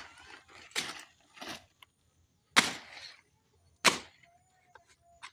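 A blade chopping into fallen plantain stems: a series of sharp, separate chops about a second apart, the loudest two in the middle.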